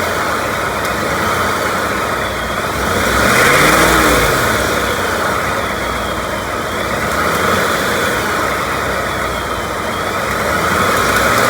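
2018 Ford F-150's 5.0 Coyote Gen3 V8 idling and lightly revved about three times, the pitch rising and falling back with each blip. The owner hears a tick only at light revs between about 1,200 and 2,000 rpm and wonders whether it is the Coyote's infamous "BBQ tick".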